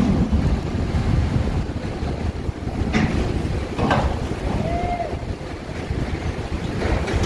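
Steady low rumble of a ro-ro ferry's machinery, with sharp knocks about three and four seconds in.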